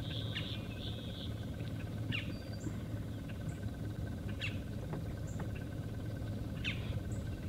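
Birds calling: short high chirps and a quick downward-sweeping call repeated about every two seconds, over a steady low hum.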